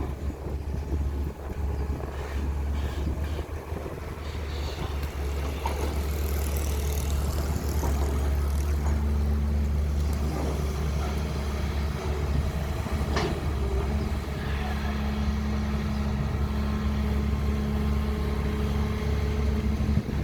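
Diesel engine of a CAT320 long-reach excavator running steadily, with a steady higher hum coming in about halfway through.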